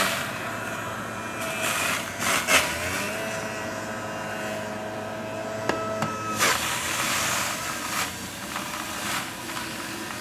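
Breville multi-speed centrifugal juicer running on its lowest speed while honeydew melon is fed through it: a steady motor whine with several louder surges of noise as the fruit is shredded.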